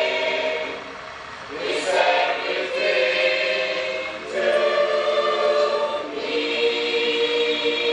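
Women's church choir singing a hymn in parts, holding long chords; the singing falls away briefly about a second in, then comes back and swells a little past the middle.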